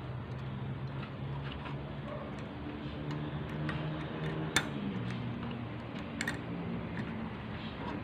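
Light clicks and taps of wire connectors and plastic parts being handled inside an opened microwave oven, with one sharper click about four and a half seconds in and a quick cluster of clicks near six seconds.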